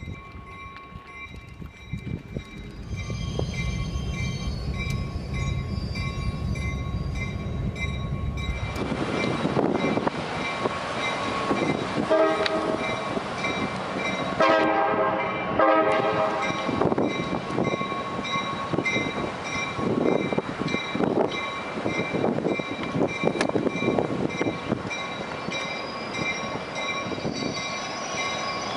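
Train passing, its noise growing loud about nine seconds in, with the horn sounding two blasts, a short one about twelve seconds in and a longer one about fifteen seconds in. A bell rings steadily all along.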